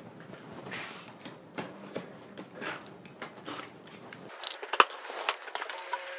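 Utility knife slitting packing tape on a cardboard box: a run of short crackles and clicks of tape and cardboard, then the box flaps pulled open, with the loudest crackles about four and a half seconds in.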